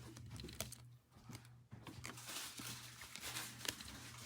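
Trading cards being handled and sorted by hand: faint rustling, crinkling and small taps, with a steady low hum underneath.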